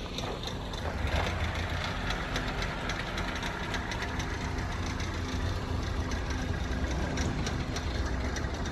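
Skoda Superb 1.8 TSI petrol engine idling roughly with rapid, steady ticking; the engine is misfiring and shaking, with a cam correlation fault.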